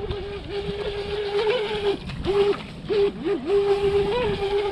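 A SprintJet micro RC jet boat's 2435 4800kv brushless motor, running on a 2S battery, gives a steady high whine. Its pitch dips briefly several times as the throttle is eased and opened again, over the hiss of the boat's wake.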